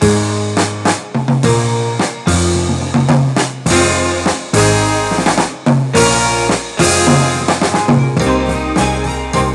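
Background music with a drum kit and a held bass line.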